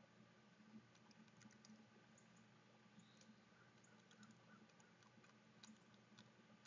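Near silence: scattered faint high ticks and one faint short rising chirp about three seconds in, over a low steady hum.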